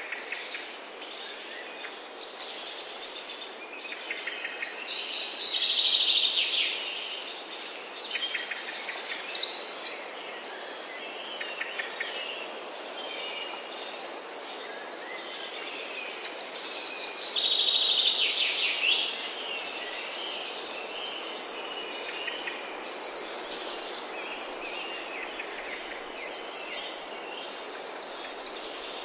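Several birds chirping and singing, with short high whistles and quick trills over a steady outdoor hiss.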